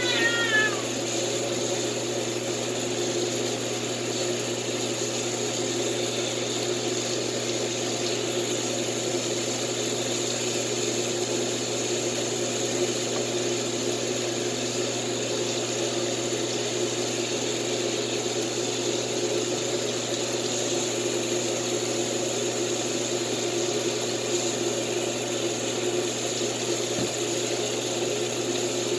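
A pet's short, falling cry right at the start, then a steady rush of running bath water that goes on without change.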